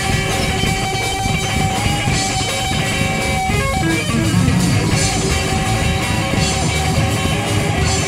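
Live rock music with guitar, playing steadily.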